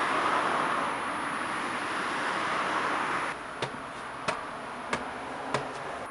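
Steady hiss of street and traffic noise. It gives way abruptly to a quieter background with four footsteps of hard shoes on tiled stairs, each a sharp click about two-thirds of a second apart.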